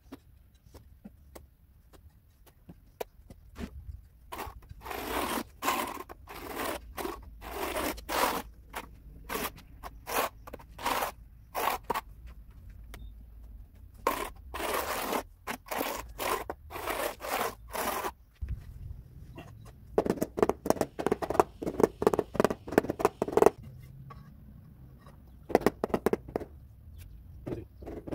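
Notched steel trowel scraping and combing cement tile adhesive across a concrete slab in repeated strokes, with a faster run of strokes a little past the middle. Near the end come a few short knocks, a rubber mallet tapping a floor tile down into the adhesive.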